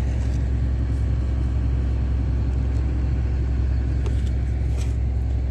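An engine running steadily at idle close by, giving a low, even drone, with a couple of faint clicks about four and five seconds in.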